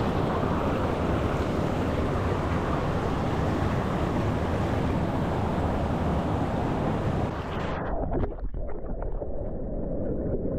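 Fast river water rushing and splashing around a king salmon held in the current. About eight seconds in, the sound turns muffled and low as the microphone goes underwater.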